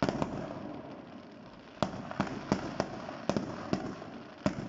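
Fireworks: an aerial shell bursts with a loud bang, followed by crackling, then a quick string of about eight sharp bangs near the end.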